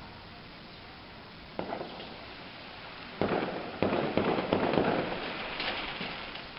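Aerial fireworks going off: a single bang about a second and a half in, then two louder bangs a little over half a second apart, followed by a couple of seconds of rapid crackling that fades away.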